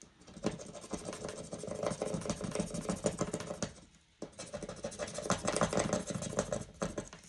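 Rapid back-and-forth scratching of a small hand tool rubbing the coating off a scratch-off spot on a cardstock savings challenge card. It comes in two bouts with a brief pause about four seconds in.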